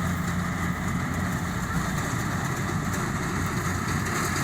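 Engine of a rice harvesting machine running steadily at a constant speed.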